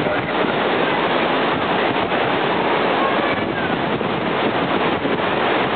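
Ocean surf breaking, with wind buffeting the microphone, making a steady rushing noise.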